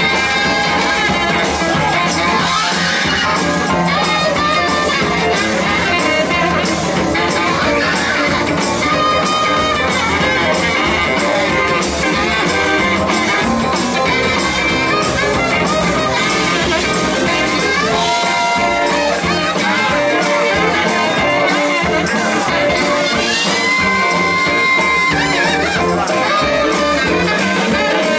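Blues band playing live at full volume, with long held high notes about eighteen and twenty-four seconds in.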